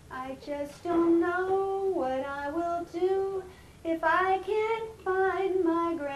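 A high, childlike voice singing a short tune in phrases of held notes with brief pauses between them: a puppeteer singing for a bunny hand puppet.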